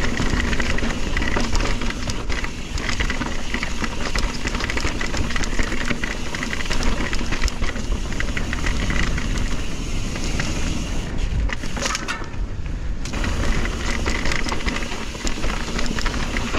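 Mountain bike rattling and clattering over rough trail, with wind rushing on the microphone: a steady, loud noise full of small knocks.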